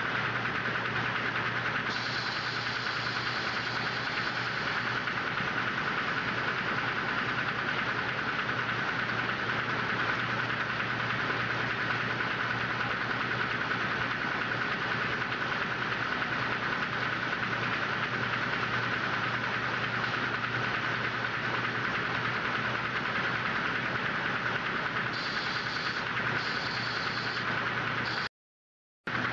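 Steady running noise of M-fold paper towel machinery, the folding machines and the band saw that cuts the towel stacks, a constant drone with a steady hum. It cuts out completely for about a second near the end.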